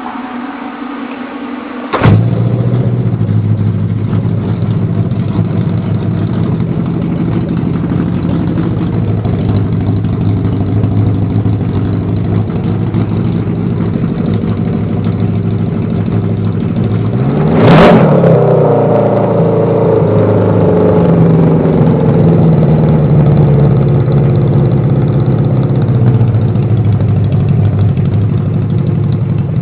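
Kawasaki KZ650 air-cooled inline-four engine, on a temporary exhaust with no air filters, starting for the first time: it catches suddenly about two seconds in and then runs steadily. A little past halfway it is revved once, with a sharp pop at the top of the rev, and it settles back to running.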